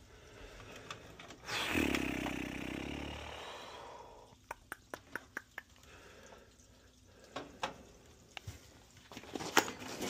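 Hands handling the wiring inside a gas furnace's control compartment: a scraping rustle about two seconds in, then a quick run of small clicks around four to five seconds in and a few scattered clicks after.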